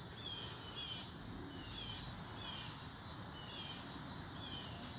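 Faint, high chirps repeating about once every 0.7 s, each falling slightly in pitch, from a small animal, over a steady background hiss.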